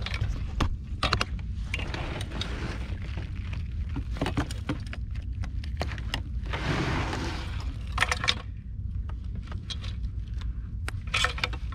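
Handling noise from a grouper being worked free of a mesh landing net by gloved hands: scattered clicks, scrapes and rustles, with a longer rustle about seven seconds in, over a steady low rumble.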